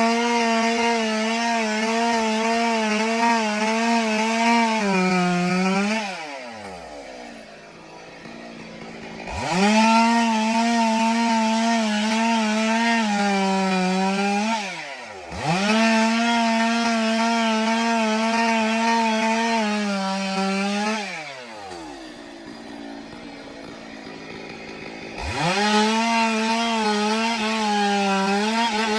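Stihl two-stroke chainsaw cutting timber at full throttle, its pitch wavering slightly under load. It drops back to idle twice and is briefly let off once midway, then revs up again into the next cut.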